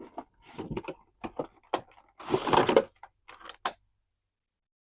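Opening an action figure's cardboard and plastic packaging: scattered clicks and taps, then a louder rustling scrape of packaging about two seconds in.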